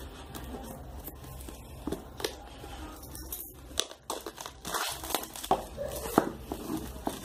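Small scissors snipping at the sealed end of a cardboard phone box, with crinkling and rustling as the box is handled. The snips come as several sharp clicks, thicker in the second half.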